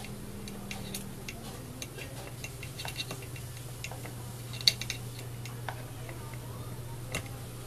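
Small metal clicks and taps of parts being handled as the piston is worked out of the Bosch GSH 11 E demolition hammer's gear housing, with one sharper click a little past halfway. A steady low hum runs underneath.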